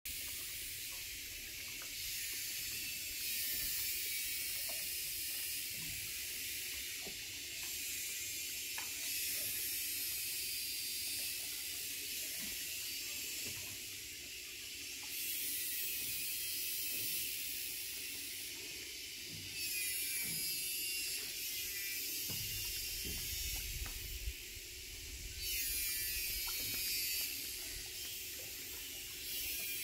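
Outdoor riverside ambience: a steady high-pitched hiss that swells and fades every few seconds, with scattered small clicks and a low rumble a little past the middle.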